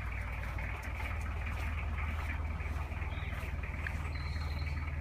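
An engine running steadily, an even low hum with no change in speed.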